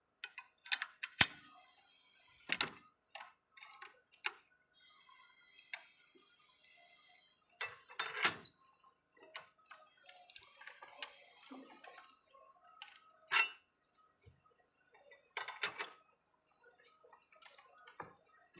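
Irregular metallic clinks and knocks of steel bar pieces on a manual cold-forging scroll bender, some sharp single strikes and a short clatter about eight seconds in.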